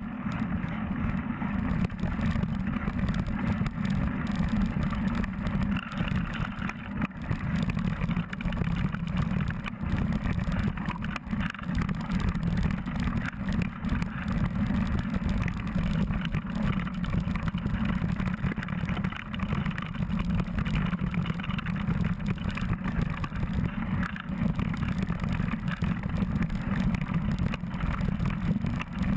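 Mountain bike ridden over rocky dirt singletrack: a steady low rumble of wind and riding noise on the camera microphone, with the tyres crunching over loose rock and the bike rattling.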